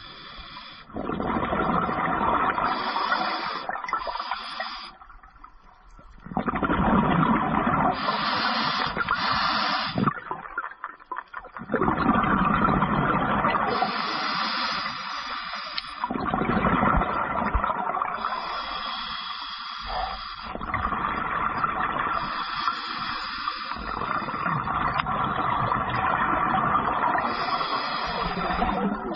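Scuba diver breathing through a regulator underwater: hissing inhalations alternate with long noisy streams of exhaled bubbles, the cycle repeating every few seconds.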